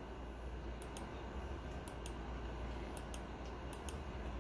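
Computer mouse clicking, short sharp clicks, some in quick pairs, roughly once a second, as the photos on screen are stepped through one by one. A faint low hum runs under them.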